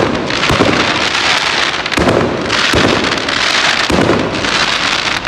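Fireworks crackling: a loud, dense run of rapid crackles and pops that swells in waves every second or so.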